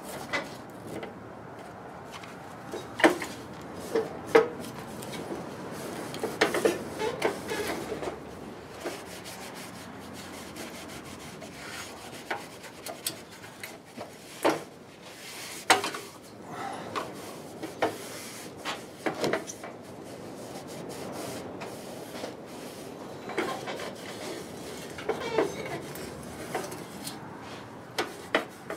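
Metal parts of a kerosene heater being handled and fitted: scattered clicks, knocks and rubbing, with a few sharper knocks.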